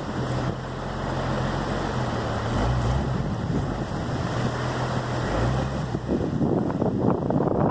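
Heavy wind buffeting the microphone over a vehicle engine running with a steady low hum; the engine hum drops away about six seconds in, leaving gusty wind rumble.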